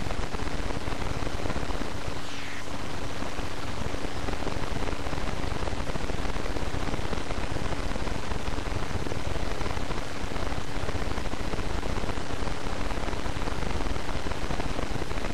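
Steady hiss across the whole range with a faint low hum under it; a faint short falling squeak about two seconds in.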